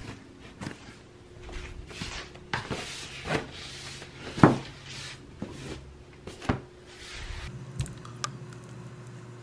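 A rolled foam exercise mat being picked up and handled, giving a series of knocks and rustles with one louder thump about halfway through. Near the end these give way to a steady low room hum.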